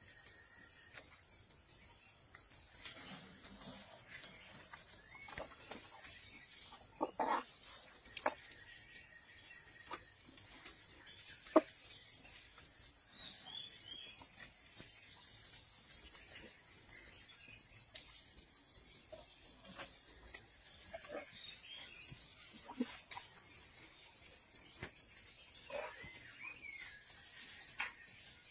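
Steady, high-pitched chirring of crickets and other jungle insects. Scattered sharp snaps and rustles of twigs and leaves break in now and then as an elephant strips foliage, with one loud crack about a third of the way in.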